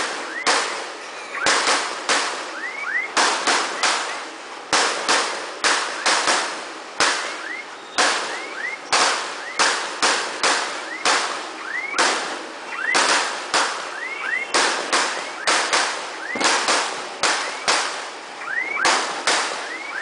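Fireworks going off in an irregular run of sharp bangs, about one or two a second, each echoing off the surrounding buildings, with short rising whistles between some of the bangs.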